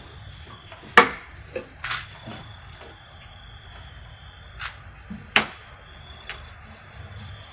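A few sharp wooden knocks and taps, the two loudest about a second in and about five seconds in, while a wooden nightstand is being primed. Under them is a steady low background rumble with a faint high steady tone.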